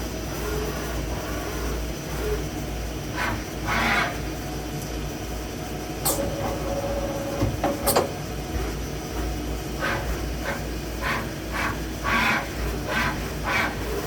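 Machine-hall ambience: a steady low hum with short hissing bursts coming and going, and two sharp metallic clicks about six and eight seconds in.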